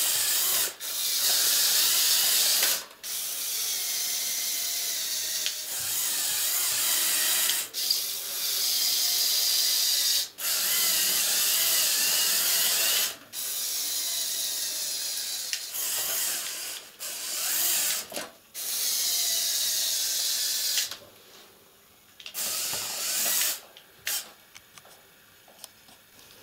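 Electric motors and plastic gear trains of a large LEGO Technic RC truck whining as it drives, in runs of a few seconds broken by short stops, the pitch shifting with motor speed. Near the end it mostly stops, with two brief runs.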